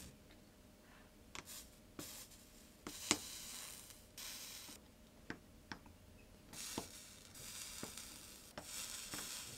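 Flux sizzling in short, faint hissy bursts as a hot soldering iron tip melts dabs of solder onto the fluxed copper-foil joints of a stained glass panel, tacking the pieces together. Light clicks come between the bursts, several times.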